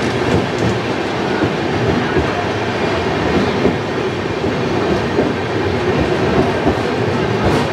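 A passenger train moving out of a station, heard from aboard: the steady rumble of the coaches running on the track.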